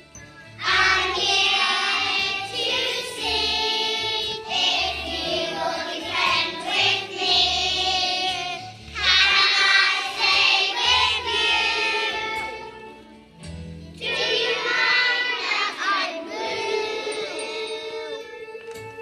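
A group of young children singing a song together over musical accompaniment with a steady bass line; the singing drops away briefly about thirteen seconds in, then picks up again.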